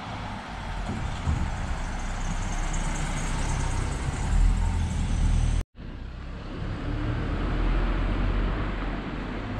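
A van drives past close by, its engine and tyres building to the loudest point as it goes by. About halfway through the sound cuts off suddenly, then steady street noise with a low rumble carries on.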